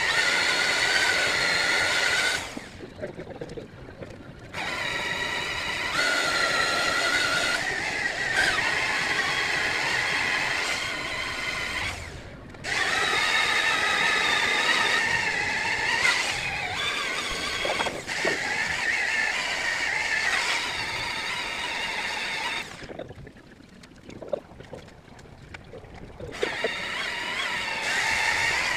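Electric car polishers with foam pads whining steadily as they buff fresh paint on the bodywork. The whine drops off and picks up again a few times: near the start, briefly about midway, and again near the end.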